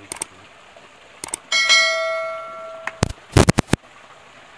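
A single bell-like metallic ring that fades over about a second and a half and then stops abruptly, with sharp clicks before it and a quick cluster of clicks after it.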